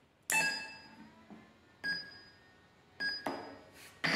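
An RC car's electronic speed controller giving three short musical start-up beeps about a second and a half apart as it powers on and tries to recognise its two electric motors. Just before the end, a steady, louder noise sets in.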